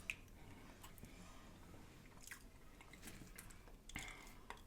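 Faint chewing and biting, with a few soft wet mouth clicks.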